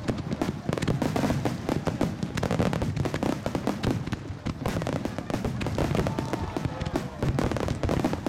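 Starmine firework display: a rapid, dense barrage of aerial shell bursts, bangs overlapping one another without a break.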